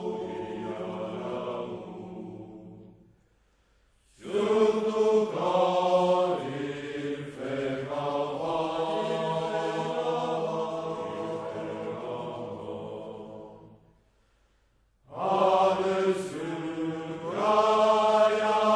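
A group of men singing a slow, unaccompanied French Foreign Legion song together in long held phrases. The singing breaks off into near silence twice, about three seconds in and about fourteen seconds in.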